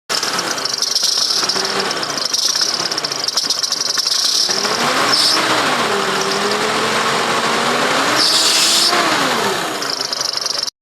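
2008 Nissan Navara engine running on a test start after its cleaned EGR valve has been refitted. The pitch rises and falls about five seconds in, then rises again and drops near the end, with a strong high-pitched hiss throughout.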